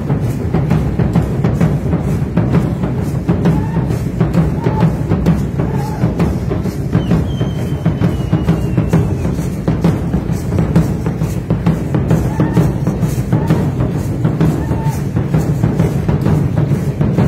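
Deep drums beaten in a fast, steady, driving rhythm, the drumming that accompanies Aztec ritual street dancers.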